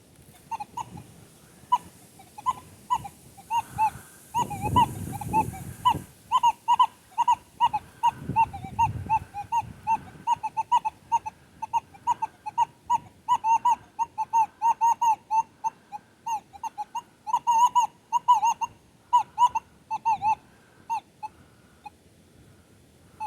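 Metal detector running in pitch mode, giving a rapid run of short beeps at much the same pitch, about two to three a second, as the coil sweeps over buried targets. The beeps stop about two seconds before the end. Low rumbles about five seconds in and again near eight seconds.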